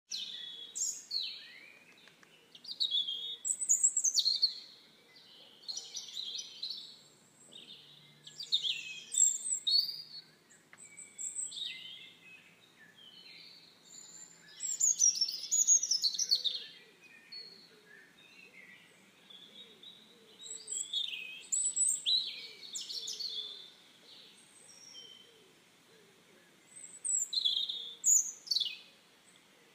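Several small songbirds singing and chirping in a forest, overlapping high chirps and trills in bursts every few seconds.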